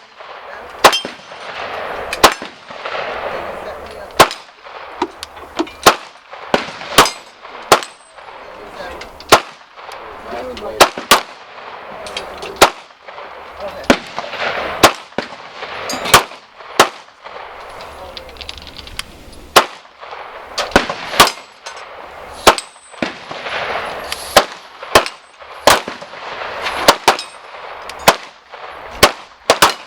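Gunfire: dozens of single shots at uneven intervals, some in quick pairs, each sharp crack ringing briefly.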